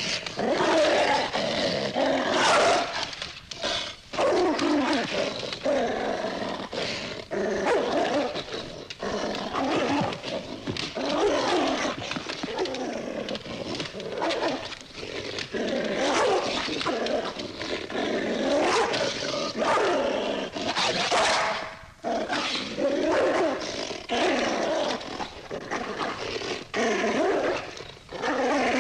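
A dog growling and snarling aggressively almost without pause, breaking into barks and snaps, as in an attack.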